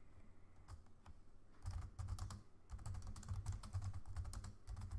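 Typing on a computer keyboard: a few scattered keystrokes, then a quick steady run of key clicks from about a second and a half in.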